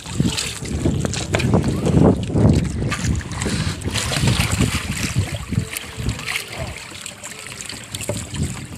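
Wind buffeting the microphone on a small boat at sea: an irregular gusting rumble, with scattered short knocks and rustles of handling.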